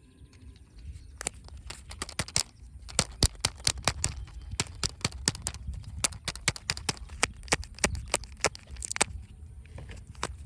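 Surprise eggs and their plastic toys and candy being handled and opened: a rapid, irregular series of sharp clicks and taps, several a second.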